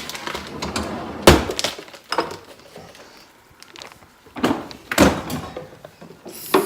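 A handful of separate knocks and clunks, like things being set down or handled, the loudest a deep thud about a second in.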